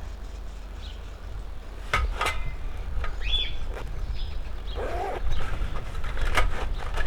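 A few sharp knocks and clinks as the parts of a small portable cooker are handled, over a steady low rumble, with a short high chirp near the middle.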